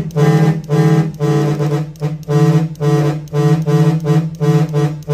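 Vehicle horns driven by a Cicada electronic horn controller, sounding one of its preset patterns: a rapid run of about a dozen short blasts, two to three a second, all at one steady pitch.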